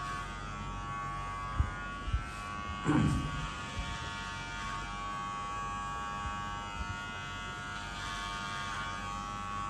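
Electric hair clipper running steadily with a motor buzz while cutting hair over a comb. Two sharp clicks come about two seconds in, followed by a brief thump a moment later.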